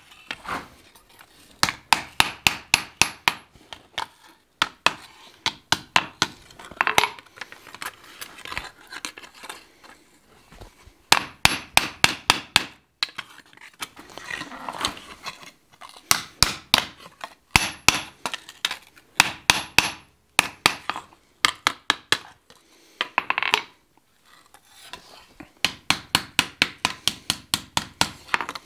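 Hand hammer striking a thin 14-gauge sheet-steel shovel blade on an anvil in quick runs of blows, about four to five a second, with short pauses between runs. Each blow rings sharply.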